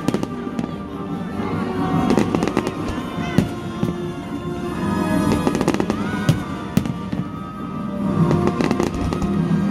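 Fireworks display going off in many sharp bangs and crackles, with music playing loudly underneath.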